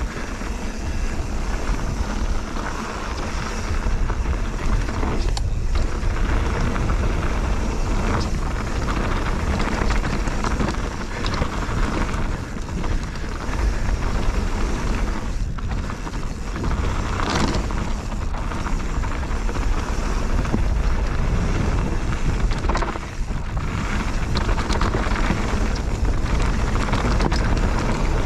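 Bird Aeris 145 mountain bike riding fast down a rough trail: tyres rolling over the surface and the bike rattling, with a few sharp knocks from bumps, under heavy wind rumble on the GoPro's microphone.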